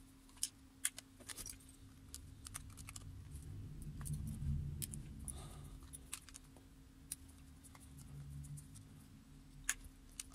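Small clicks and scrapes of a small Phillips screwdriver working tiny screws out of a cassette transport's metal plate, with the soft rumble of the mechanism being handled and turned over, loudest a few seconds in.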